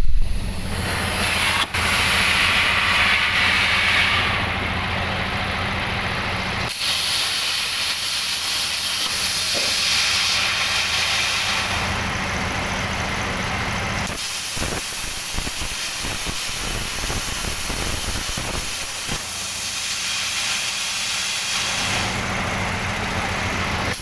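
CNC plasma cutter's torch hissing steadily as it cuts, with a low hum from the machine underneath.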